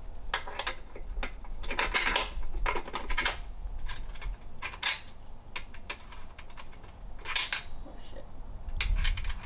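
Metal parts clinking and knocking in a string of short, irregular clanks, as tools and bolts are handled while fitting a trailer axle and leaf springs.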